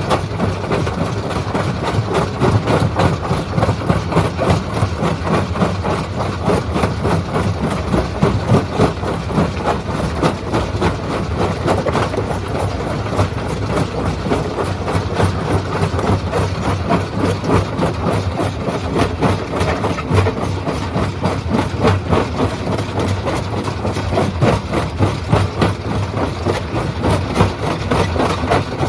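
Stone crushing machine running steadily under its engine's low hum, with continuous clattering and knocking of rock being broken.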